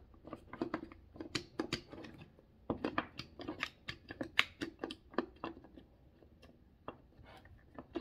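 Small wooden sliding pegs of a puzzle box being pushed and pulled by hand: a quick run of light wooden clicks and knocks that thins out after about five seconds.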